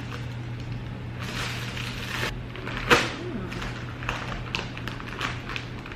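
A shipping package being opened by hand: packaging rustling and tearing, with one sharp knock about three seconds in, over a steady low hum.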